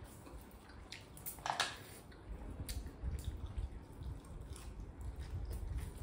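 Close-miked eating sounds: snails sucked from their shells with wet slurps and smacks, and small clicks of chewing and handling food, one louder slurp about a second and a half in.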